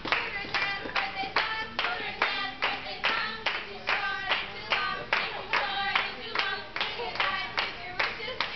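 A group of waitresses singing a birthday song together while clapping along in a steady, even beat.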